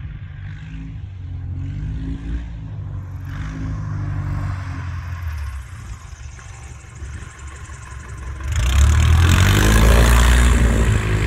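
Radio-controlled Carbon Cub model airplane taxiing after landing, its motor and propeller running at a low, wavering pitch. It grows much louder from about eight and a half seconds in as it comes close.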